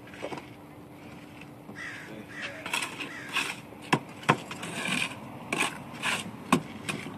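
Mason's trowel working mortar on a mortar board and concrete blocks: short scrapes starting a couple of seconds in, with a few sharp knocks in the second half.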